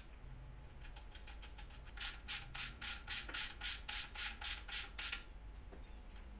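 Hand ratchet clicking as it turns a cam seal installation tool on a Mazda 1.8L engine, pressing the camshaft oil seal home. A few faint clicks come first, then about a dozen sharp clicks at roughly four a second, stopping about five seconds in.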